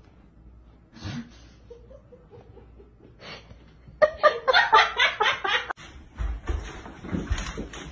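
A person laughing in a quick run of short bursts for nearly two seconds, starting about four seconds in and breaking off abruptly. A few low thumps follow near the end.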